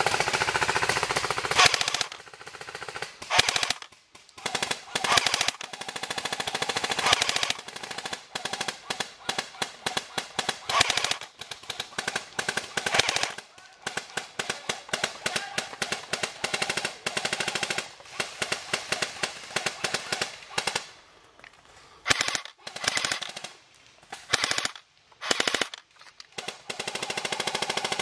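Airsoft guns firing on full-auto: long bursts of rapid clicking shots, several seconds at a time, broken by short pauses and a few brief bursts.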